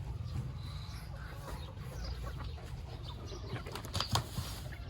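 Chickens and ducks flapping their wings, with a few sharp flaps about four seconds in, over a steady low rumble.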